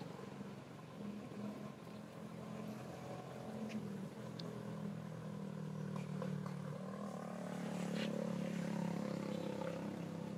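A motor engine running steadily with an even hum, swelling slightly about eight seconds in, with a few faint clicks over it.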